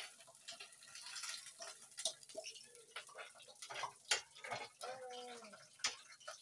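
Irregular light clicks and clinks of a fork against a metal pot and a ceramic plate as pieces of fried fish are lifted out one by one, with a short vocal sound about five seconds in.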